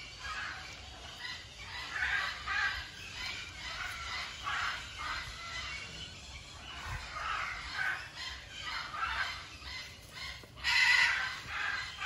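A hyacinth macaw's short, repeated calls, a string of brief croaks, with a louder call near the end.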